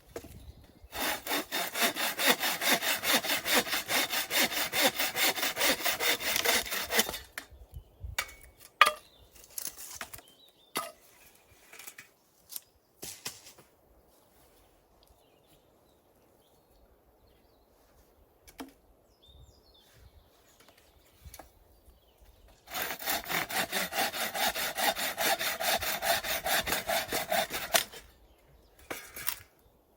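Hand saw cutting through wood in quick, even back-and-forth strokes, about five a second, in two spells of roughly six and five seconds. Scattered knocks of wood being handled come between the spells.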